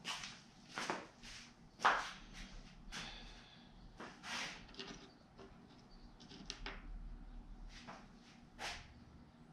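Scattered handling noises at a workbench: small clicks and rustles, irregularly spaced, as small hardware parts are picked up and fiddled with by hand. The sharpest click comes about two seconds in.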